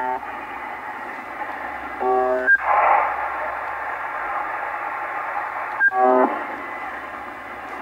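The Russian military buzzer station UVB-76 ("The Buzzer", MDZhB) on 4625 kHz, heard through a Yaesu shortwave receiver's speaker: short, harsh buzz tones recurring every few seconds, with shortwave static hissing between them. A sharp click comes just before each buzz, and a louder swell of static follows the first buzz.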